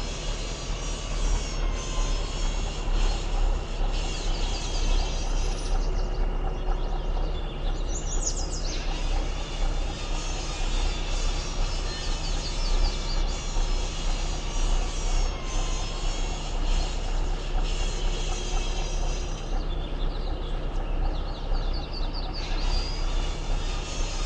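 A vehicle running steadily, with a deep hum throughout and a high rising whine that comes in twice.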